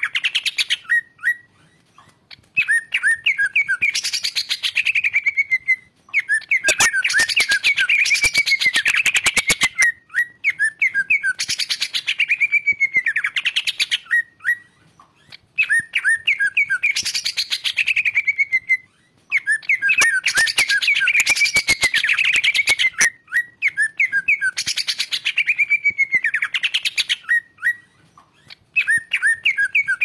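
Cucak ijo (green leafbird) in full song: loud, varied phrases a few seconds long with short pauses between. The phrases hold quick runs of notes, whistles that fall in pitch, and fast clicking rattles.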